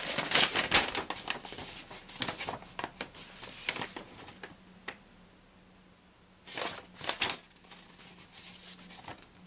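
Paper crinkling and rustling as an old envelope is opened and the folded paper inside is handled, busiest in the first few seconds, with another short burst about seven seconds in.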